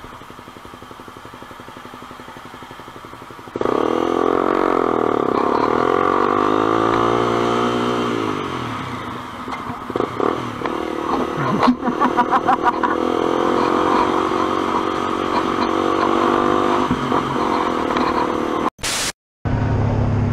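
Sport motorcycle engine heard from the rider's helmet camera: quieter at first, then suddenly loud about three and a half seconds in, its pitch rising and falling as it accelerates. A few quick throttle blips come around the middle. The sound cuts out briefly near the end.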